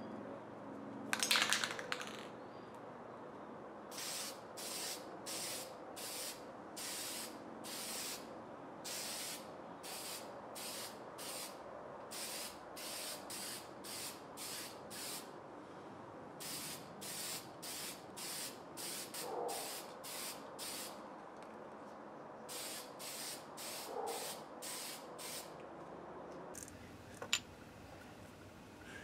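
Aerosol spray can sprayed in many short hissing bursts, about one and a half a second, with a couple of brief pauses, and a louder hiss about a second in.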